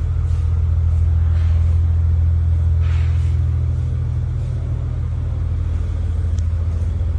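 A car's steady low rumble, even in level throughout.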